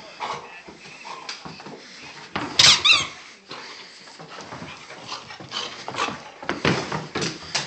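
A small dog playing excitedly, with many short scuffs and taps from its movements on rug and floor. About two and a half seconds in come two loud, high-pitched squeaks in quick succession.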